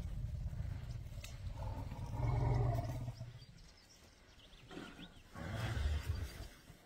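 African elephants rumbling: a low rumble throughout, swelling into two louder calls, one about two seconds in and one about five and a half seconds in.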